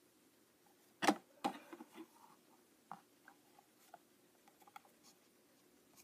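Handling noise from a small vinyl figure and its cardboard blind box: two sharp knocks just after a second in, then scattered light taps and clicks.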